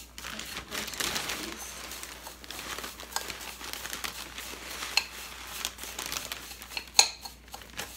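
Plastic cereal bag crinkling and rustling as it is handled, with scattered clicks and a sharp tap about seven seconds in.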